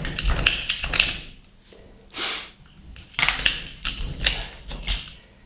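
Irregular knocks and clatter from the metal pump housing being handled during cleaning of scale, in two clusters, with a short hiss about two seconds in.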